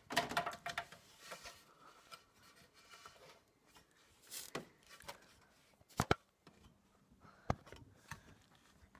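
Scattered knocks, bumps and rubbing of someone climbing a folding aluminium loft ladder into an attic, with sharp clicks about six and seven and a half seconds in.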